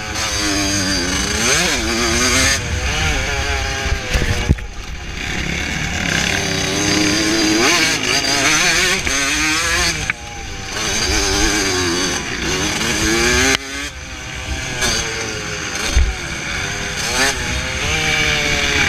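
A 1982 Suzuki RM125X's 125cc two-stroke single engine being ridden hard, its pitch climbing and falling again and again as the throttle is opened and closed. The engine drops off briefly twice near the middle, and there is a single sharp knock about four seconds in.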